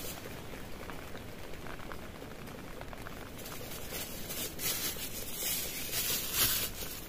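Steady heavy rain pattering on a tent, with a few brief, louder hissy bursts in the second half.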